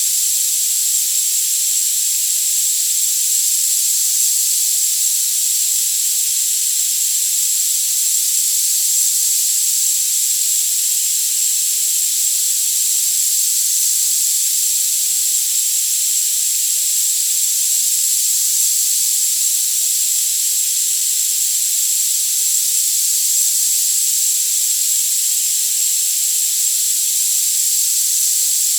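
Generated tinnitus-therapy sound: a steady high-pitched hiss with no low end, with a thin, constant very high tone over it.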